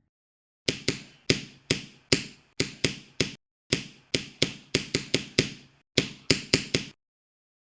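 A series of about twenty sharp clicks, about three a second, in three quick runs with two short pauses.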